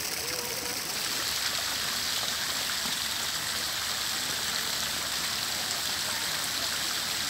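Fountain jets splashing steadily into a pool, growing louder about a second in.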